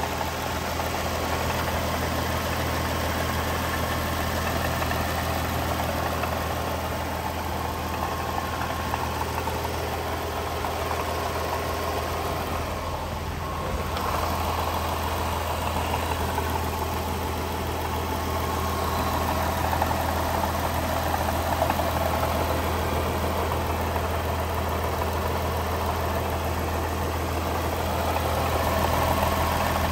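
A 2017 Jaguar F-Type's 3.0-litre supercharged V6 idling steadily, heard with the hood open.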